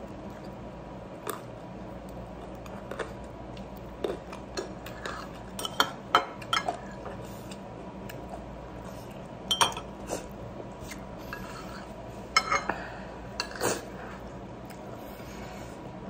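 Light clinks and taps on a china plate as a person eats rice by hand, coming in a few short clusters several seconds apart over a steady low hum.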